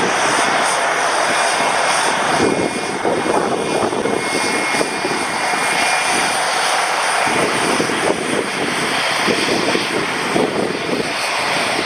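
Cessna 750 Citation X business jet departing, its twin Rolls-Royce AE 3007 turbofans running loud and steady at high power, with a faint high whine in the first half.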